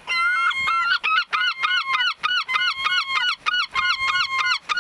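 Gulls calling: a fast run of repeated, yelping pitched calls, several a second, with longer calls just before.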